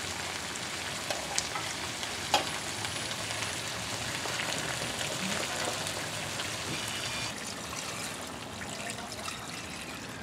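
Chunks of meat in a thick sauce sizzling steadily in a wok as they are stirred with a spoon, with a couple of sharp clicks a second or two in.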